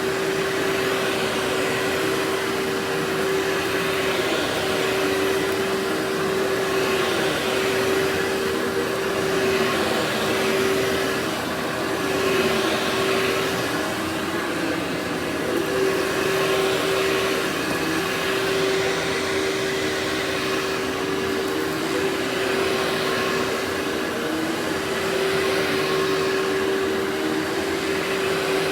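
Workhorse vacuum cleaner running steadily with a constant motor whine. Its rushing airflow swells and fades about every two seconds.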